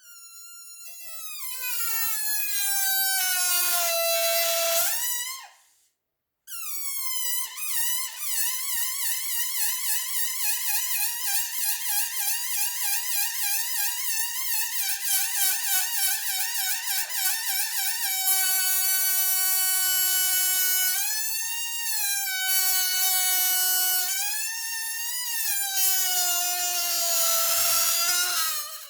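Air squealing out through a balloon's stretched neck, making a loud, pitched squeal. The note wavers and slides down over the first few seconds and stops briefly about six seconds in. It then resumes with a fast warble, and later holds steadier notes broken by a few swoops up and down.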